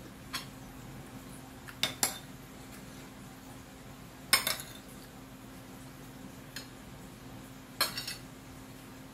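Metal fork and spoon clinking and scraping against a plate of rice: a handful of short, sharp clinks, the loudest about four seconds in and a quick cluster near the end.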